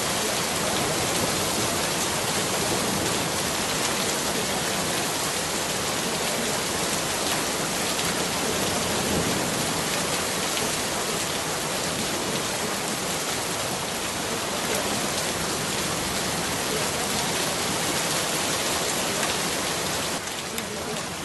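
Steady rain sound, an even hiss with no breaks; its lower part drops and the level falls slightly near the end.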